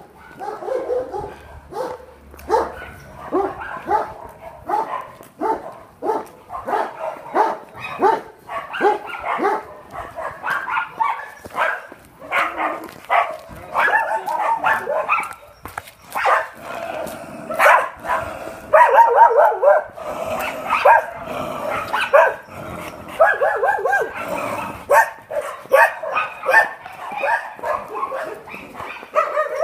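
Dog barking over and over, short sharp barks in a long run, more frequent and louder in the second half.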